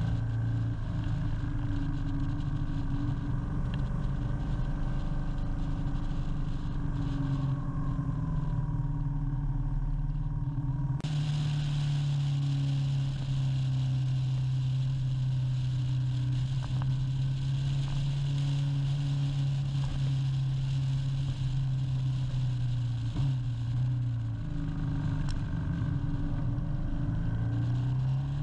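Motorcycle engine running steadily at road speed, with wind and road noise over the microphone. The wind hiss grows suddenly about eleven seconds in, and near the end the engine note drops as the bike slows, then rises again as it pulls away.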